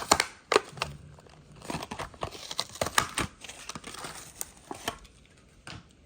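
Hot Wheels blister package, a plastic bubble on a cardboard card, crinkling and tearing as it is opened: a rapid run of crackles and snaps that thins out near the end.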